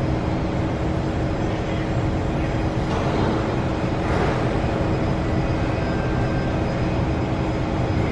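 Steady hum of a stationary SMRT C151 metro train's onboard equipment, heard from inside the car with the doors open, with a brief rush of hiss about three and four seconds in.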